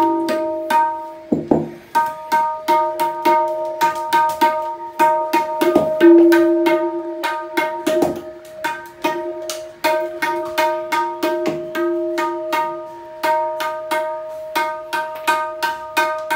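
Tabla dayan struck in quick, uneven strokes, each ringing at the same clear pitch with overtones, as the drum's tone is tested and tuned. There is one lower thud about a second and a half in.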